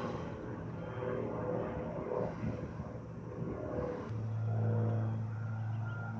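A car engine running, its sound shifting over the first few seconds and settling into a steady low hum from about four seconds in.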